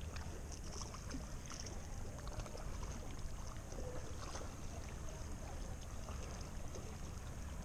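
Calm sea water lapping and washing against shore rocks in a steady, low wash.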